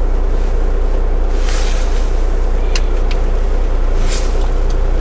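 Semi truck's diesel engine idling with a steady low hum, heard from inside the cab. Automatic truck-wash spray briefly hisses against the windshield about a second and a half in and again about four seconds in, as the soap goes on.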